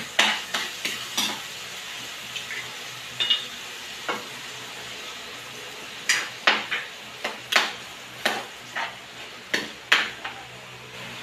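A cooking utensil stirring food in a pan on a stove, clanking and scraping against the metal in irregular clusters of clinks and knocks.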